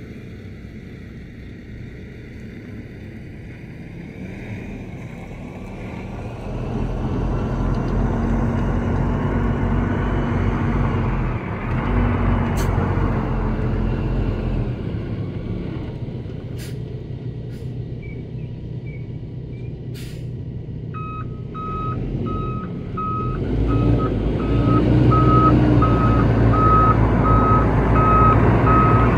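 Paccar MX 12.9-litre diesel of a 2014 Peterbilt 579 day-cab tractor pulling in and manoeuvring, the engine rising and falling with a few short sharp sounds midway. From about two-thirds through, the truck's reversing alarm beeps steadily while the engine pulls harder as it backs up.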